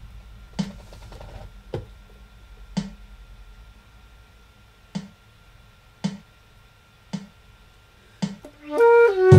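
Sharp, short clicks at a steady beat about once a second, counting in the tempo, then near the end a flute and clarinet come in playing together.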